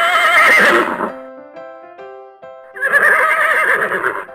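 Horse whinnying twice, each call about a second long with a wavering, quavering pitch, over light piano music.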